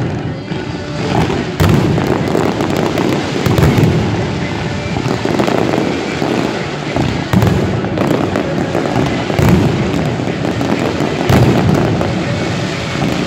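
Fireworks display: many aerial shells bursting in quick succession, a dense run of bangs and crackle with no pauses.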